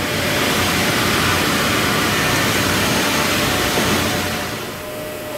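Steady, loud rushing noise of workshop machinery, easing off about four and a half seconds in.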